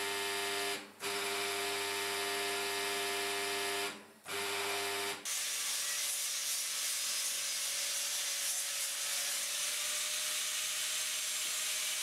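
Power tools finishing cast bronze segments. A motor-driven grinder runs with a steady whine that cuts out briefly twice. About five seconds in it gives way to a steady hissing, rasping noise of abrasive work on the metal surface.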